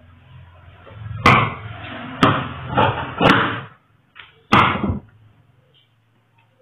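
Large tailor's shears cutting through plaid cloth along a paper pattern on a wooden table. There are about five short strokes, each starting with a sharp click and trailing off in a brief scrape of blade through fabric, and the last comes about four and a half seconds in.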